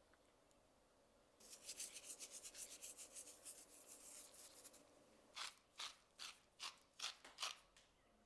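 Salt sprinkled by hand onto raw potato slices: a rapid, fine patter of crystals starting about a second and a half in and lasting about three seconds. Then black pepper is ground over them from a pepper mill in about seven short, separate grinding strokes.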